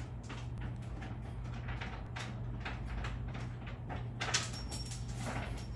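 Irregular rustling and light scratching from a kitten moving about on a blanket in a wire cage, a little louder a few seconds in, over a steady low hum.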